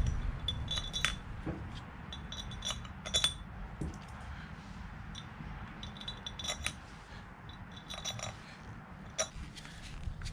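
Small new bolts clinking as they are handled and set into the rebuilt air compressor's head cover: light, ringing metallic clinks in several short clusters.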